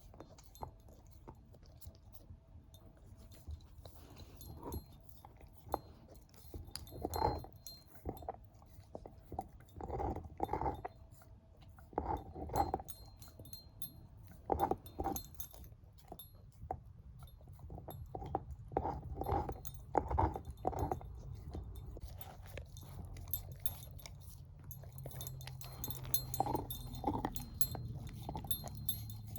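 Shepherd-mix dog gnawing a bone, with irregular loud crunches and bites that come in clusters and quieter pauses between them.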